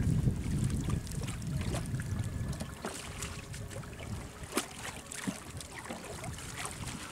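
Water splashing and dripping as a cast net is hauled up out of the river, with many small scattered splashes and drips and one sharper splash about halfway through. Wind rumbles on the microphone in the first second or so.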